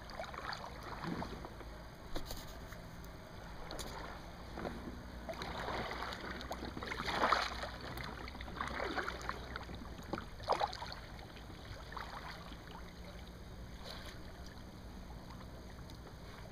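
Water lapping and swishing around a kayak, with a few louder swishes, the strongest about seven seconds in and another about ten and a half seconds in.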